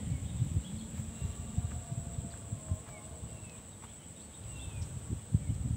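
Outdoor pond-side ambience: insects, such as crickets, droning steadily at a high pitch, with a few short bird chirps and irregular low rumbling thumps.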